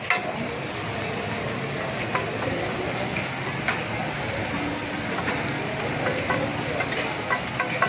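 A metal scraper chopping and scraping food across a large flat iron tawa griddle, with scattered sharp taps of the blade on the metal over a steady sizzle of frying.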